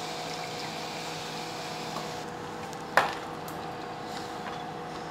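Cooking at the stove: a steady low hum with a hiss that stops about two seconds in, then a single sharp clank of a utensil against the pan about three seconds in.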